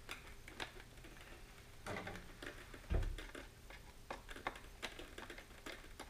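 Small screws being turned in with a hand screwdriver to fasten the rocket's motor retention clips: irregular small clicks and ticks of the driver and hardware, with a low thump about three seconds in.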